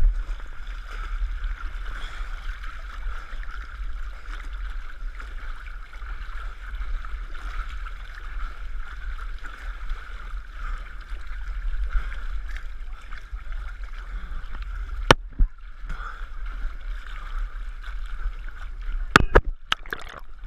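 Muddy water sloshing as a runner crawls through a shallow mud pit, over a steady low rumble. Sharp knocks about three-quarters of the way through and a cluster near the end as the camera bumps and dips into the mud.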